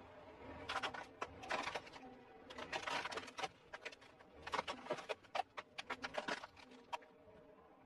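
Plastic toy trucks cracking and crunching under a slowly rolling car tyre, in several bursts of rapid crackling.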